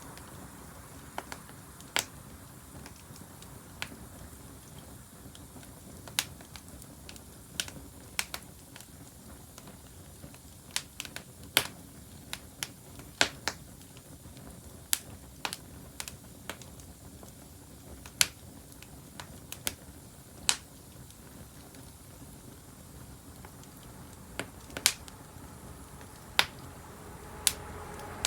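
Wood bonfire crackling: sharp, irregular pops and snaps over a low, steady hiss.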